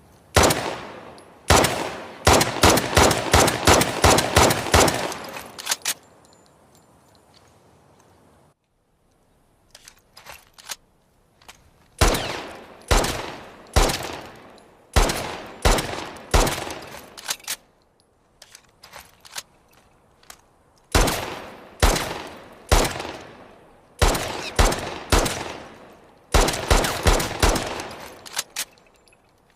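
Military pistol gunfire: a fast string of shots, then single shots about a second apart, each with a short echoing tail, and another quick string near the end. A few faint clicks come in the gap between the strings.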